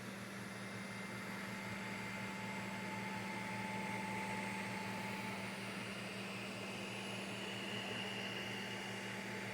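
Creality CR-M4 3D printer running a print: a steady fan hum with thin stepper-motor whines that come and go and change pitch as the axes move.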